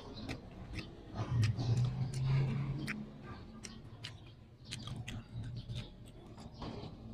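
Close-up wet chewing and lip smacks of someone eating snow peas and chicken with rice by hand, with many short sharp clicks throughout. A louder low hum runs from about a second in to about three seconds in.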